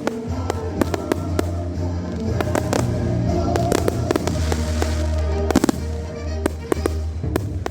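Fireworks going off in quick succession, many sharp bangs and crackles, over music with long held notes and a steady low bass.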